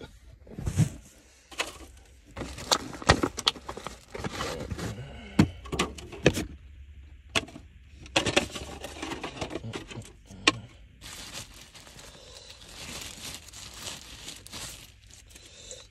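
Close handling noise: irregular rustling, crinkling and sharp clicks as the recording phone is set down and the packaging is handled.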